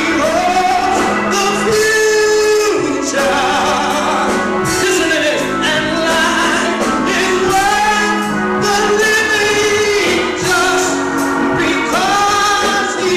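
Gospel singing with instrumental accompaniment: a voice holding long notes that slide up and down in pitch over a steady musical backing.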